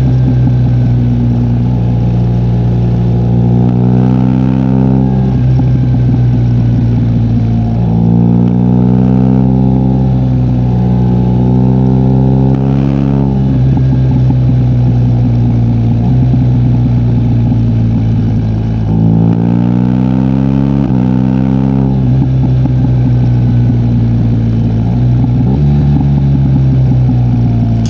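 BMW R1250GS boxer-twin engine on a BT Moto ECU flash tuned for pops and crackles, its exhaust note climbing in pitch on the throttle and dropping back about five times. There is a sharp pop from the exhaust about halfway through.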